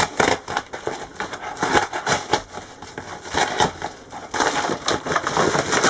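Brown kraft-paper mailer being torn open by hand along its tear strip: continuous crackling, crinkling paper with short ripping sounds.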